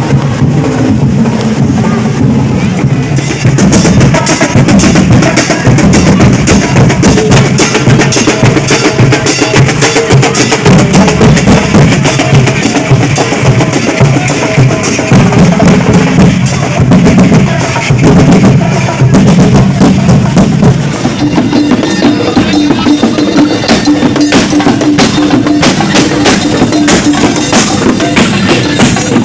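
Loud music with a heavy drum beat, played through a big sound system at close to full volume. The sound is near the point of distorting, and a steady held tone comes in about two-thirds of the way through.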